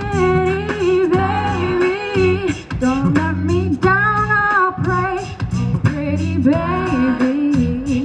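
A woman singing into a microphone through a PA, over backing music with a bass line and a steady beat.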